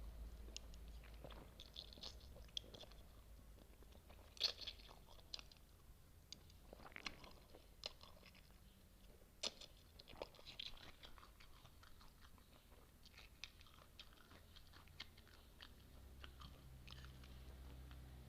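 A person chewing spicy noodles and kimchi, with irregular crisp crunches and wet mouth clicks. The sharpest crunch comes about four and a half seconds in.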